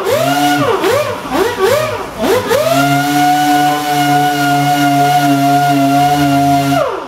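Dry sander ("buzzer") with 320-grit paper, sanding spray putty off a car bumper bar. Its whine swings up and down about twice a second for the first couple of seconds, then holds a steady pitch and falls away near the end.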